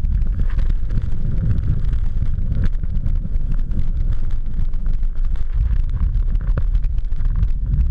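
Wind buffeting the camera's microphone in a steady low rumble, with the hiss of snow spray, during a fast descent through deep powder snow.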